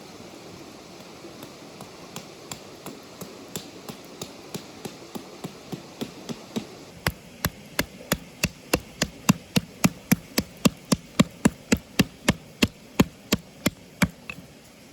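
A long run of sharp, evenly spaced strikes, about three a second, faint at first and much louder from about halfway, stopping shortly before the end.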